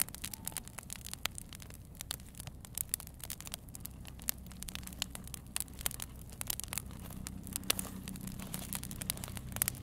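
Wood campfire crackling: irregular sharp pops and snaps from the burning wood, over a low steady hum that grows stronger about halfway through.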